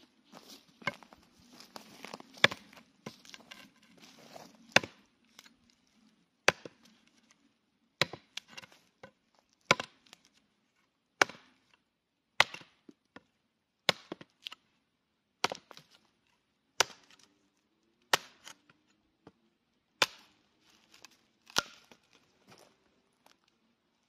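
A Cold Steel Trail Hawk tomahawk chopping into a green sapling pole: about fourteen sharp chops, roughly one every second and a half, with lighter knocks between them in the first few seconds.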